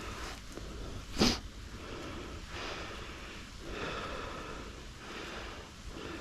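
A climber's heavy breathing, coming in rhythmic noisy swells a little over a second apart, with one sharp, loud burst of noise about a second in.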